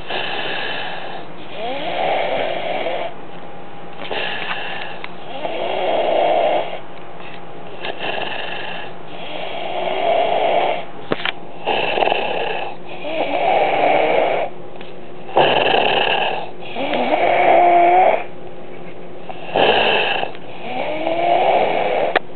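A child snoring loudly in his sleep, a rasping snore recurring about every two seconds with short quiet breaths between.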